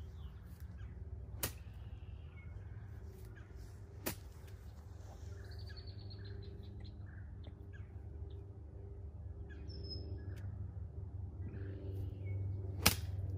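A golf club strikes the ball with one sharp, loud crack near the end, after two fainter ticks earlier on. Birds chirp over a steady low rumble.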